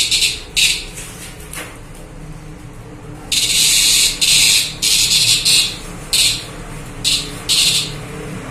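A green cicada, held and squeezed between the fingers, gives loud buzzing bursts. Two short buzzes come at the start, then a longer run of buzzes from about three seconds in, then a few short spurts near the end.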